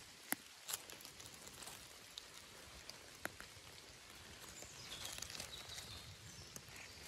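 Quiet beech-woodland ambience with a few sparse, sharp light ticks and a faint high-pitched call about five seconds in.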